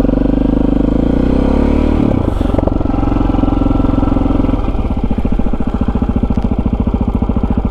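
KTM 640 Adventure R's single-cylinder engine running as the bike is ridden, with rapid, even firing pulses. The engine note shifts about two seconds in and eases a little past the halfway point.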